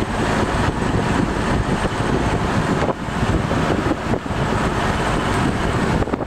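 Engine of a motorized outrigger boat (bangka) running steadily while the boat cruises, a loud rough drone.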